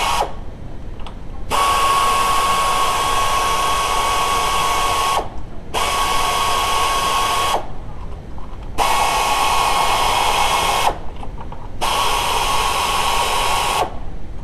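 A power tool run in repeated bursts of two to three and a half seconds, each a steady whine that switches on and off sharply, four times with short pauses between.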